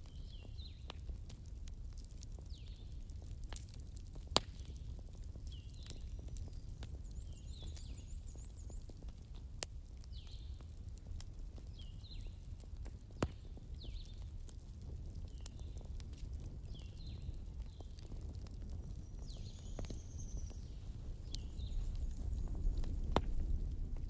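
Wood fire crackling in a fireplace: a steady low rumble of the flames with scattered faint crackles and a few sharp pops, the loudest about four seconds in.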